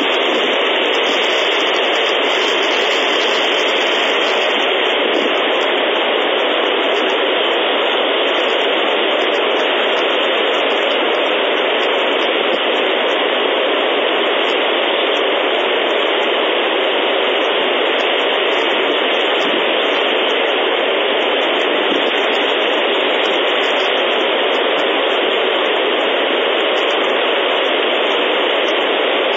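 Steady, loud hiss of static from the nest camera's audio feed, even and unchanging.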